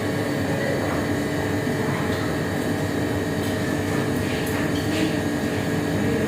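Steady room noise in a restaurant dining room: an even background hum of ventilation, with a few faint short clicks.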